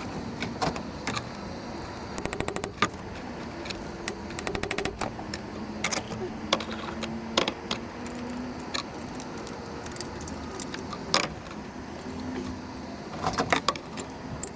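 Metal hand tools and parts clinking and knocking, with three short runs of rapid, evenly spaced clicks: about two seconds in, about four seconds in, and near the end.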